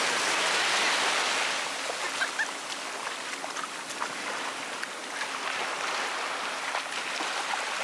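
Small waves washing in over shallow beach water, with a few light splashes.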